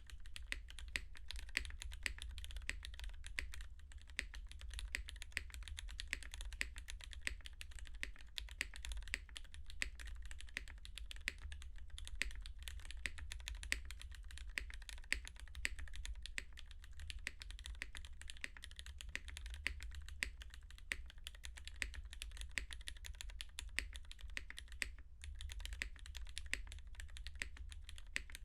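Continuous typing on a top-mount MC65 mechanical keyboard with lubed and filmed Cherry Hyperglide Black linear switches, an aluminium plate and GMK keycaps: a dense stream of keystroke clacks with a brief pause about 25 seconds in, over a steady low hum.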